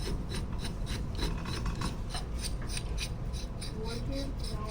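Ratchet wrench clicking in a quick, even rhythm, several clicks a second, with a rasping rub between the clicks.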